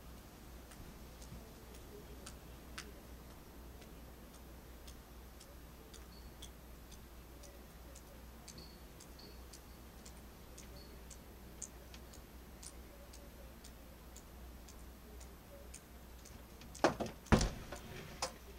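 Faint, irregular ticking and clicking, roughly one or two ticks a second, over a low steady hum. A few much louder knocks come in a cluster near the end.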